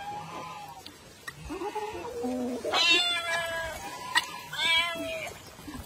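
A domestic cat meowing repeatedly: about four drawn-out meows with rising and falling pitch, the loudest around the middle.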